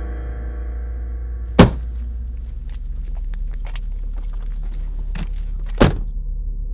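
Two heavy car-door slams about four seconds apart, with small clicks and handling noises between them, over a steady low synthesizer drone.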